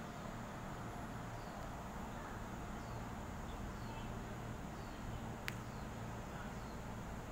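Steady low hum of a Taiwan Railway EMU3000 electric multiple unit standing at the platform, with faint short falling chirps about once a second and a single sharp click about five and a half seconds in.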